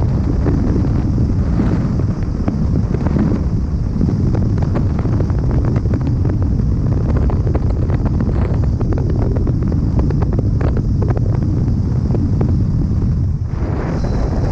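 Wind buffeting the microphone of a car driving at road speed, over a steady low rumble of the car and its tyres, with scattered light clicks in the middle.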